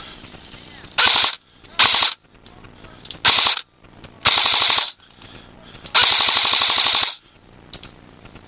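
Airsoft gun firing five full-auto bursts close by, the last and longest about a second.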